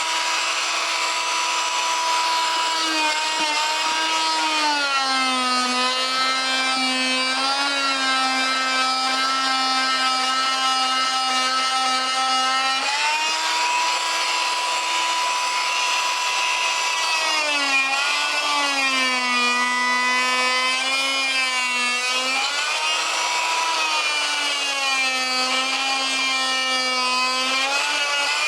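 Oscillating multi-tool with a cut-down hardwood blade running continuously while cutting grooves into rubber lawnmower tires. Its motor whine drops in pitch when the blade is pressed into the rubber, around five and eighteen seconds in, and rises again as the pressure eases, over a scratchy cutting hiss.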